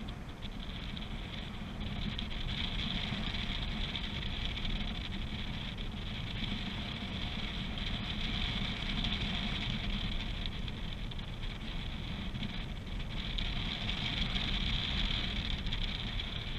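Airflow rushing over a camera microphone in paraglider flight: a steady rush with low buffeting rumble, swelling and easing slowly.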